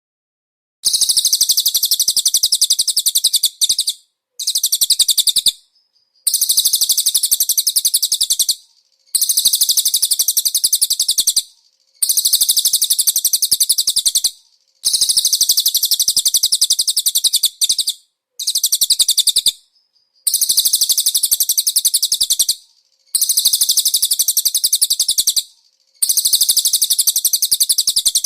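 Cililin bird singing a rapid, very high-pitched trill, repeated in bouts of two to three seconds with short pauses between them.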